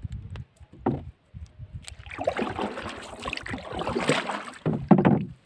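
Water splashing and sloshing against the side of a small wooden fishing boat, with a louder splash just before the end.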